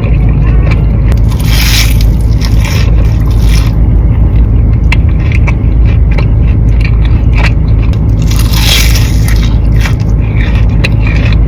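Close-miked eating: biting and chewing crunchy fried mozzarella sticks, with louder crunching at about two seconds in and again at about nine seconds in, over a steady low hum.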